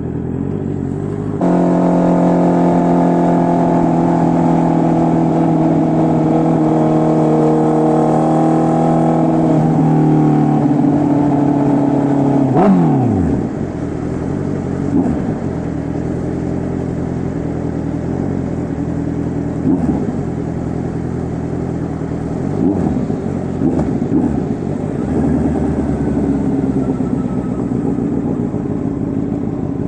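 Honda CB650R inline-four engine through an SC Project full exhaust system, held at steady raised revs for about ten seconds. The revs then drop sharply when the throttle is closed, and it settles lower with a few short throttle blips.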